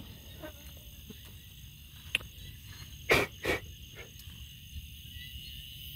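Night insects, crickets among them, trilling steadily. About two seconds in there is a sharp click, and about three seconds in come two short rattles of a wire-mesh cage trap being handled.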